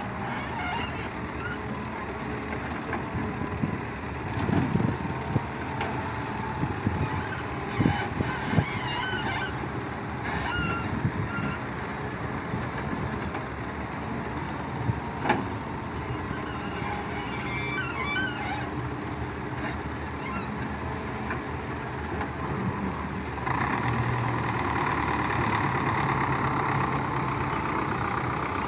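Volvo wheeled excavator's diesel engine running under load as the hydraulic arm digs and dumps sand, with a few sharp knocks and thuds from the bucket and falling sand, and several short high-pitched squeals. The engine gets louder and busier for the last five seconds.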